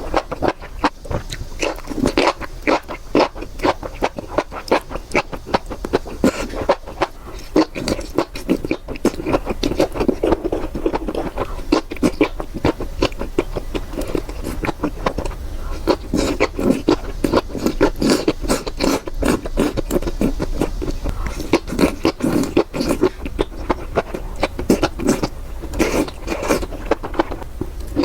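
Close-miked eating: food being chewed and crunched, with rapid, irregular crackling clicks that keep on throughout.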